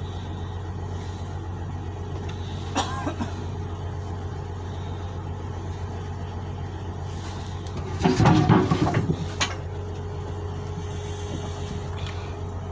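An engine running at a steady idle, with a low, even hum. A short sharp sound comes near three seconds in, and a louder burst of handling noise lasts about a second around eight seconds in.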